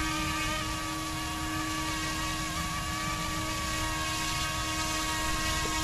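Small RC scale helicopter (YXZNRC F09-S UH-60 Black Hawk) hovering, its direct-drive brushless main rotor motor and tail motor giving a steady whine of several tones at a constant pitch.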